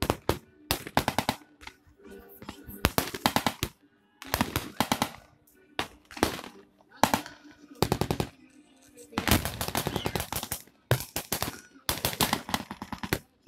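Blank-firing machine gun bursts in a battle reenactment: repeated rapid bursts of shots, each about half a second to a second long, with short pauses between them.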